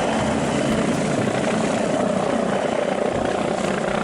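Helicopter sound, a steady rotor and engine noise that holds at an even level throughout.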